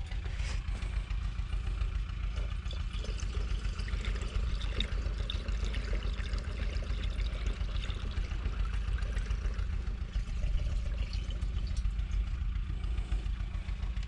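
Diesel trickling from a measuring jug into a tractor's external test fuel container, topping it back up to measure fuel used, over the steady idle of a New Holland 3630 Plus three-cylinder turbo diesel engine.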